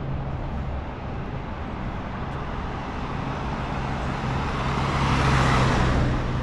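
Street traffic: a steady low engine hum, with a car passing close by, its noise swelling to a peak about five seconds in and then easing off.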